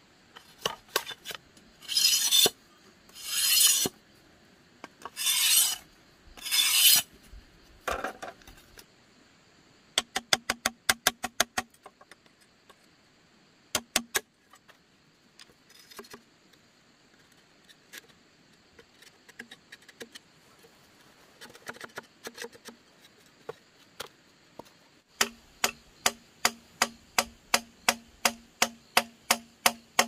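Hand tools working bamboo: four long rasping strokes, then runs of sharp knocks with a low ringing tone, about three a second near the end.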